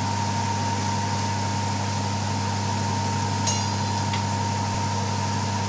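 Steady machine hum over an even hiss, unchanging throughout, with one faint click about three and a half seconds in.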